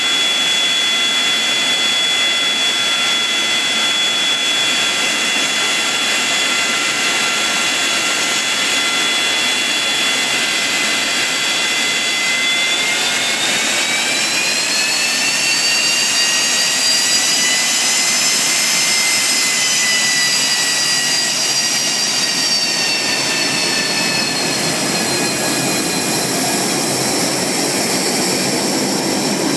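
Boeing 737-200's Pratt & Whitney JT8D turbofan engines running with a loud, steady jet noise and a high whine. About twelve seconds in, the whine rises in pitch as power is added to get the jet moving, then eases back down several seconds later.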